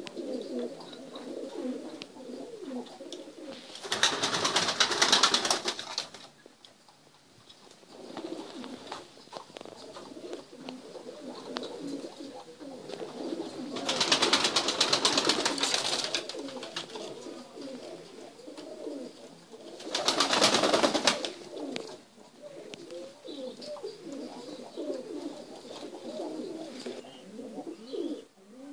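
Domestic feather-footed pigeons cooing repeatedly in low, wavering coos. Three loud rustling bursts of about two seconds each cut in, about four seconds in, midway, and about two-thirds of the way through.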